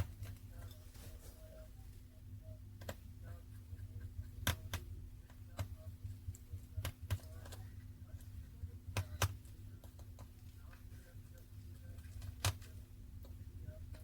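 Irregular sharp clicks and taps from handling the reassembled phone, about a dozen, the loudest about four and a half, nine and twelve and a half seconds in, over a low steady hum.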